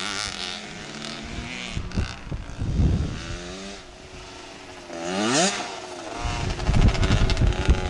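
Small two-stroke Cobra youth motocross bike engine revving and changing pitch as it rides the track. Its pitch climbs sharply in a rev about five seconds in, and it gets louder toward the end as the bike comes nearer.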